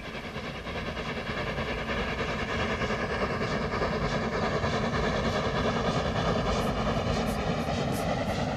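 A steady rumbling noise that fades in from quiet over the first few seconds, then holds level.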